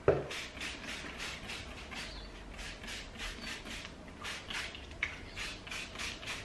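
Hand trigger spray bottle spritzing a diluted fertiliser solution onto a potted gerbera's leaves: a quick run of short hissing sprays, about two or three a second. A sharp knock comes right at the start.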